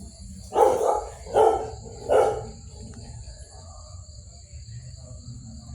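A puppy barking three times in quick succession, about a second apart.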